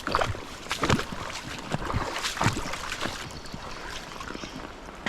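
River water splashing and sloshing in irregular bursts, while a hooked fish is played at close range.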